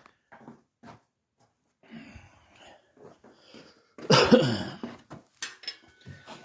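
A man coughing once, loudly and briefly, about four seconds in, with a few light clicks and knocks before and after.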